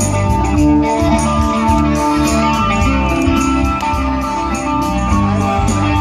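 Live band playing an instrumental passage: guitar over bass, with a steady beat of cymbal strikes.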